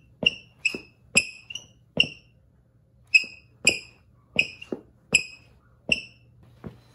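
Rubber soles of Air Jordan 1 Low sneakers squeaking on a glossy tile floor as the feet step and scuff. About ten short, sharp squeaks, half a second to a second apart.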